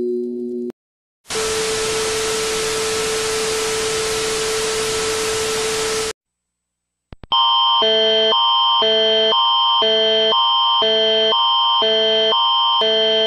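A mock emergency-alert sequence. Sustained chime-like tones cut off in the first second, then comes about five seconds of loud hiss with a steady low tone under it, and a short gap. About seven seconds in, a loud alarm tone starts, flipping back and forth between two chords about twice a second, in the manner of Canada's Alert Ready attention signal.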